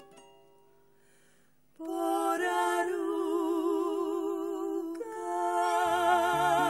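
A plucked-string chord dies away into a short hush. Then female voices hold a long wordless sung note with vibrato, moving to a second held note about five seconds in. Low accompaniment enters near the end.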